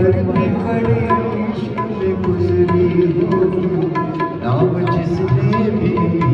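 Live harmonium and tabla music: the harmonium holds chords over a steady tabla rhythm whose ringing strokes recur through the passage, with a man singing along.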